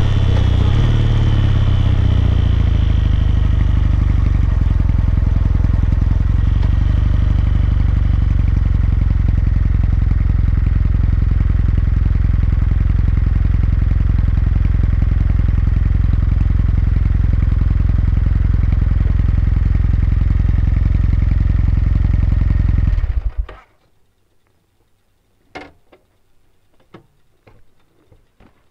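Kawasaki MEGURO K3's air-cooled parallel-twin engine running steadily, then switched off about 23 seconds in; the sound cuts off suddenly and a few faint clicks follow.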